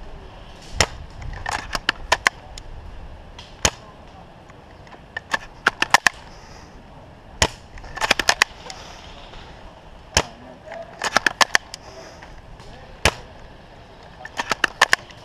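Airsoft guns firing: sharp single shots alternating with short rapid bursts of several shots, the pattern repeating about five times.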